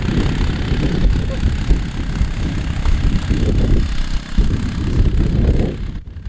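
Arctic Cat ATV engine running under load as it pushes snow with a front-mounted plow, its rumble rising and falling, with a short drop in level near the end.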